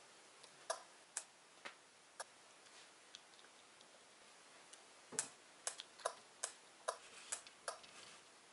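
Faint, irregular tapping in two runs of about two taps a second: chicks pecking at their shells from inside pipped eggs as they hatch.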